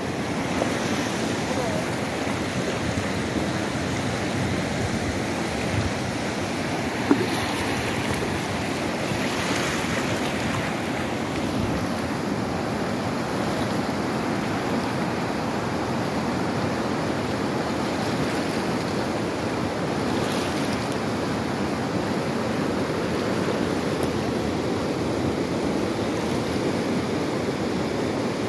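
Fast, muddy river in flood rushing steadily over stones, a constant even roar of water. A single brief knock about seven seconds in.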